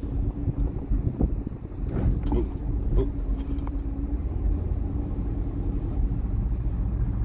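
Car engine running with a steady low rumble and a faint hum, with a few short clicks or knocks in the first half.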